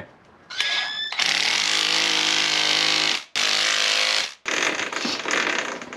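Hand-held power drill/driver running in two bursts, about two seconds and then one second with a short break between, as it turns the press screw of a chain riveting tool on a motorcycle chain's master link. A rougher, uneven mechanical noise follows near the end.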